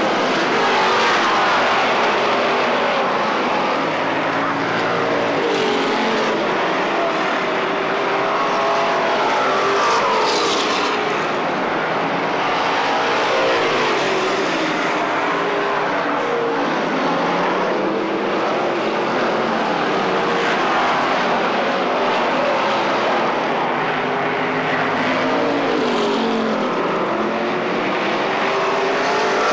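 A field of stock cars racing: several engines at full throttle at once, their pitch sliding up and down as cars come toward and pass the stands, with no break.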